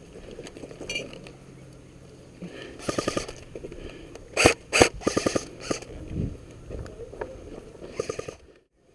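Airsoft guns firing in short bursts of rapid, evenly spaced snapping shots, with two louder single shots about four and a half seconds in and a last short burst near the end.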